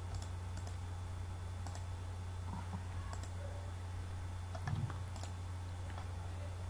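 Computer mouse clicks, about five spaced out, over a steady low electrical hum, with a soft low thump about three-quarters of the way through.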